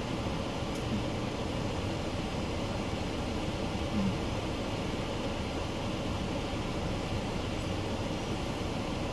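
Steady rumble and hiss inside a car with the engine running, with one small knock about four seconds in.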